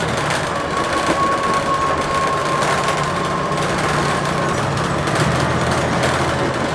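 Blue Bird TX4 CNG transit bus under way, heard from inside: its Cummins Westport ISL-G natural-gas engine and drivetrain running with road noise. A thin, high whine holds steady from about half a second in, dips slightly and fades about four and a half seconds in.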